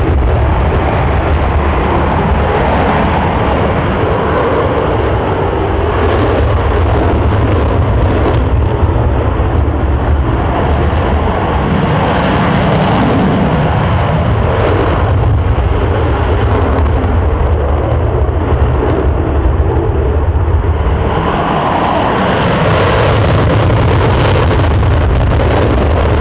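Twin jet engines of F/A-18 Hornet fighters running loud and steady as the jets move along the runway. The level swells and eases slightly a few times.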